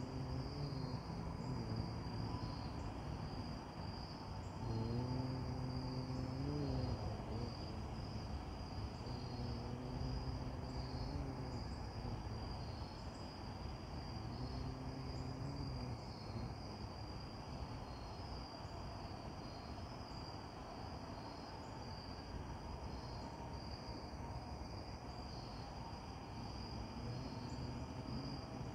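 Outdoor insect chorus: a steady, pulsing high trill of crickets. A low hum of steady pitch fades in and out about four times in the first half.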